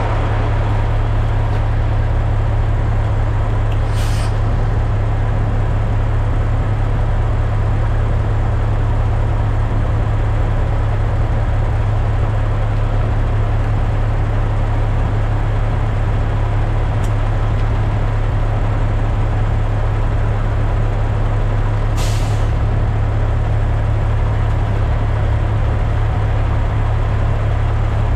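Kenworth W900L semi truck with a Cummins X15 diesel running with a steady low drone, with two short hisses about 4 seconds and 22 seconds in.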